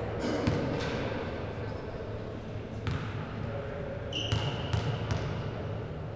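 Basketball bounced on a gym floor: a few scattered bounces, then three quick, evenly spaced bounces near the end as a player dribbles at the free-throw line. A brief high squeak comes just before those last bounces.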